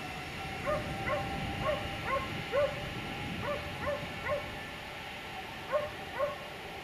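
A dog barking: a run of short barks about two a second for roughly four seconds, a pause, then two more near the end. Under it runs a steady low rumble.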